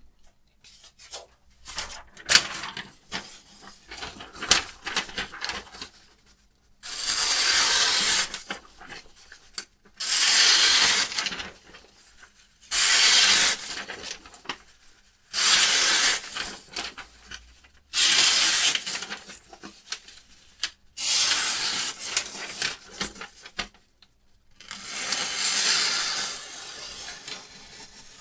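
Abrasive sharpening stone drawn along a carbon-steel knife blade in a guided sharpening system: seven long scraping strokes, each one and a half to two and a half seconds, with short pauses and light clicks between them as the stone is repositioned.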